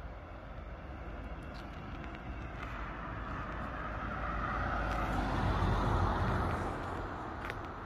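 A car passing on the road: tyre and engine noise builds gradually, peaks about six seconds in, then fades.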